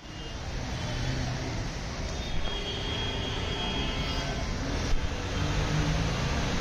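Motorcycle engine running as it rides slowly through floodwater, over a steady wash of traffic and water noise; the engine hum grows stronger near the end as it comes closer.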